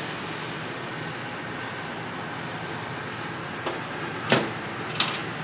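Steady outdoor background noise, with three short sharp knocks near the end, the second one the loudest.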